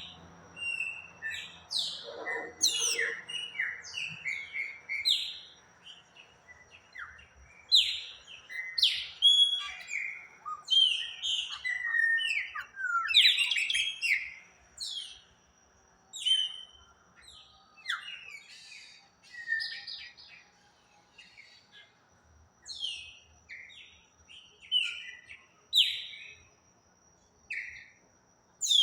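Birds chirping and singing: many short, quick chirps and whistled notes, some sliding up or down in pitch, coming in clusters with brief pauses between them.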